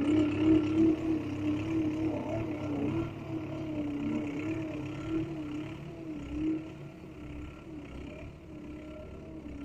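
Mini bulldozer's motor running with a steady whine that wavers slightly in pitch, fading gradually.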